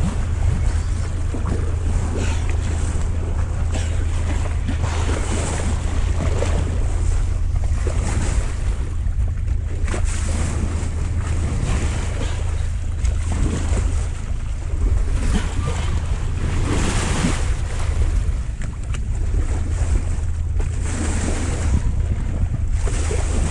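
Boat motor running with a steady low hum, under wind buffeting the microphone and water rushing and splashing past the hull.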